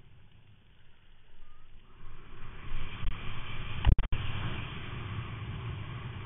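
Wind and water rushing past a helmet-mounted camera on a water skier towed at speed, quiet at first and building about two seconds in. A loud buffet hits about four seconds in, with the sound cutting out twice for an instant.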